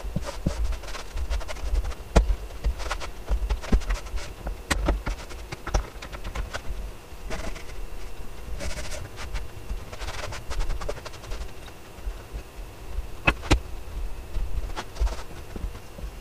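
Irregular knocks, clicks and rustles as glued-up pine boards and bar clamps are handled and wiped down on a wooden workbench, with a few sharper knocks now and then.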